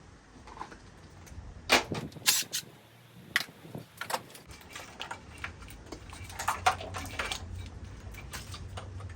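Hand tools and parts knocking and clicking during work on a car's engine bay: a few sharp knocks about two seconds in, single ones near three and four seconds, and another cluster near seven seconds, over a low steady hum.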